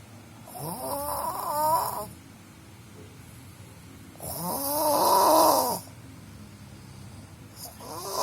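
A sleeping person snoring: two long snores about three and a half seconds apart, each about a second and a half long with a wavering pitched tone over a breathy hiss, and a third one starting near the end.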